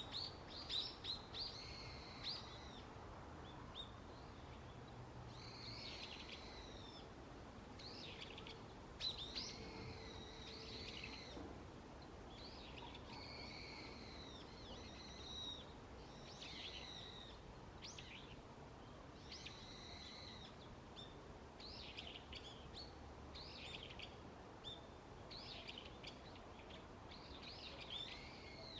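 Wild birds calling in woodland: short, high chirping phrases repeating every second or two, over a faint steady background hiss.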